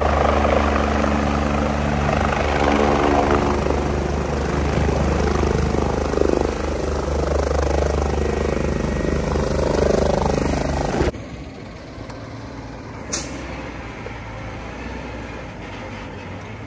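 Helicopter turbine and rotor blades running loud, a fast steady chop, as it hovers and sets down. About eleven seconds in the sound drops abruptly to a much quieter steady engine rumble, with one short sharp squeak a couple of seconds later.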